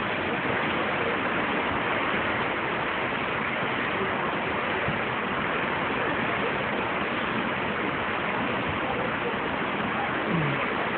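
Steady rushing of sea water streaming past the hull of a moving cruise ship, an even noise with no rhythm.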